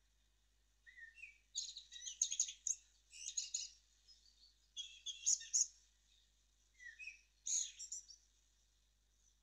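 Birds chirping and singing in short runs of rapid high chirps a second or two apart, with a few single falling notes between them.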